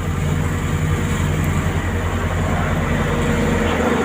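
Diesel engine of asphalt road-paving machinery running steadily with a low, fast-pulsing rumble. Near the end the low rumble drops away and a steadier hum takes over.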